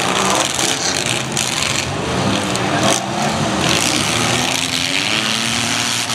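Several demolition derby cars' engines revving at once, with a few sharp knocks in the first half.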